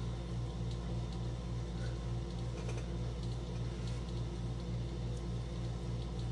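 A steady low mechanical hum that pulses about four times a second, with faint scattered light ticks and taps over it.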